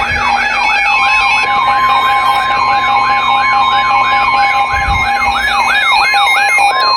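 Electronic alert siren yelping, sweeping up and down about three times a second. A steady alert tone joins about a second in, with faint stepping beeps higher up. These are severe-weather warning alert tones heralding a tornado warning.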